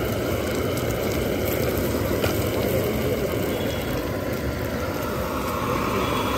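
Steady roar of a gas burner under a steel frying pan, with eggs sizzling in the hot oil.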